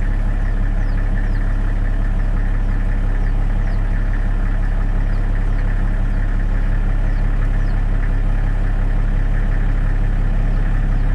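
Loud, steady low hum of an idling engine, with faint short high chirps, each falling in pitch, about once a second.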